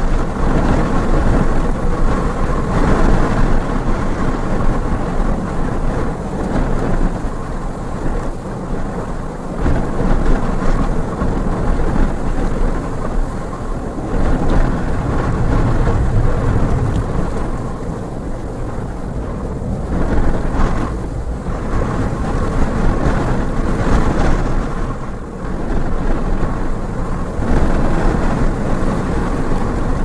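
Twin-jet airliner's engines at takeoff power during the takeoff roll and climb-out: a loud, rumbling, rushing noise that swells and eases. Heavy wind gusting over the microphone mixes with it.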